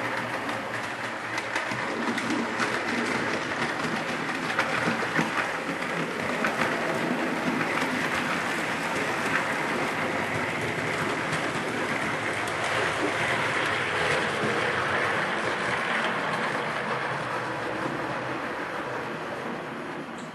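Steam train running at speed, a steady rush of rail noise and chuffing that dies away near the end.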